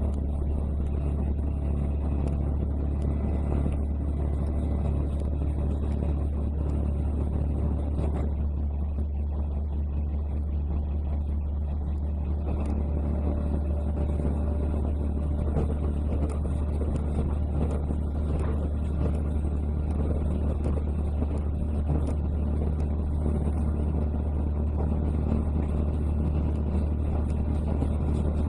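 KiHa 100 series diesel railcar running along the track, heard from inside the car: a steady low rumble of the diesel engine and wheels on rail, with a few faint clicks.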